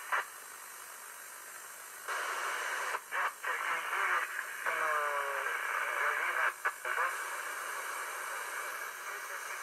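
Hiss and static from a 2-metre (144 MHz) amateur-band radio receiver with no strong signal tuned in. The hiss is quieter at first and gets louder about two seconds in, with a few brief dropouts and faint traces of a distant voice breaking through the noise near the middle.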